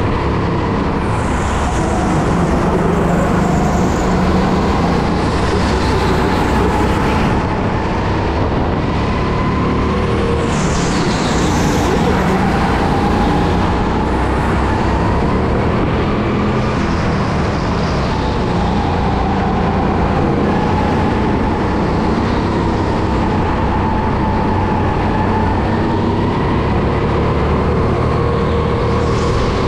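Racing go-kart running continuously at speed, its motor drone sagging and rising slowly in pitch as the kart brakes and accelerates through the corners.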